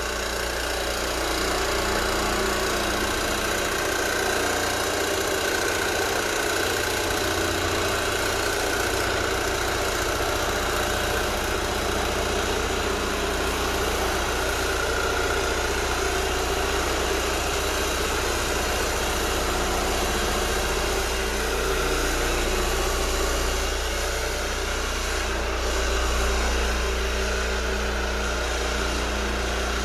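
Square scrub oscillating floor machine running steadily, its motor humming as the pad abrades the old polyurethane finish off a hardwood floor.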